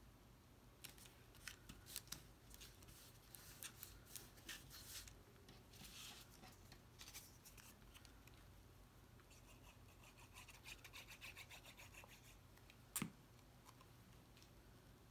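Faint handling of cardstock: paper pieces rustling, ticking and rubbing as they are picked up, set in place and pressed down onto the card base by hand, with one sharper tap near the end.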